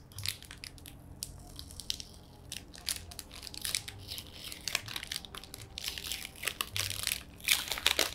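Clear plastic bag crinkling and crackling as it is peeled open by hand. Quiet for the first couple of seconds, then the crackles come thicker, densest just before the end.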